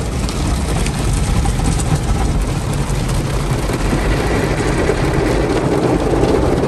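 Automatic car wash heard from inside the car: spinning cloth brushes and water spray sweeping over the body and windows, a steady loud rumble and wash that grows stronger near the end as the brushes pass the side window.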